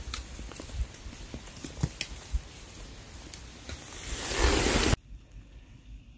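Outdoor rustling with scattered sharp clicks and crackles, swelling about four seconds in to a loud rushing noise that cuts off suddenly a second later. Faint quiet ambience follows.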